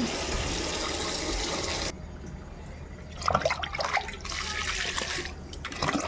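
Water poured from a container onto potted plants and their soil: a steady splashing pour that stops abruptly about two seconds in, then a few sharper splashes and another short pour.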